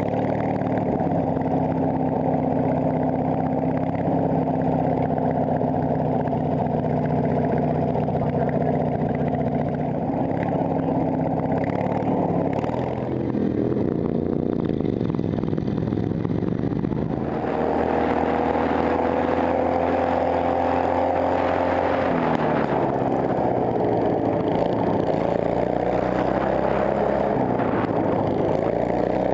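Racing ride-on lawn mower's engine running hard, heard close up from on board. The revs drop and climb back twice, about halfway through and again near the end, and the engine holds a higher pitch after the first climb.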